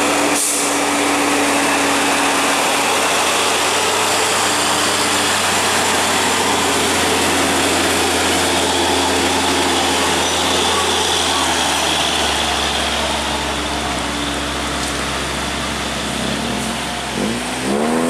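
Diesel engines of heavy box trucks climbing a steep grade, an Isuzu FVZ passing close by, with a steady loud drone and a low rumble that grows about two-thirds of the way through.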